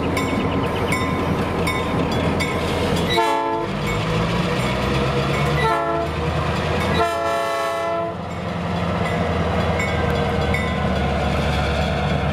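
Norfolk Southern diesel road-switcher locomotive sounding its multi-chime horn three times, two short blasts and then a longer one, over the steady running of its diesel engine. The grade-crossing bell rings steadily, about twice a second.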